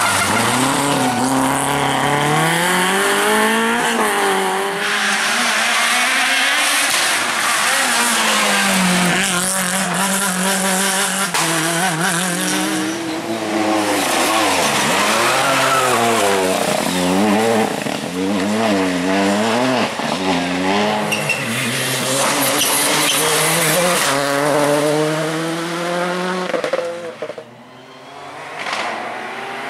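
Rally cars driven hard on a tarmac stage: the engines rev up and drop again and again through gear changes and braking, with tyre noise under them. The sound drops away briefly near the end before picking up again.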